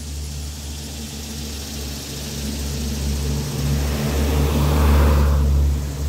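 A car drives past close by, its tyre and engine noise swelling to a peak about five seconds in and then falling away sharply. Annual cicadas keep up a faint steady high buzz behind it.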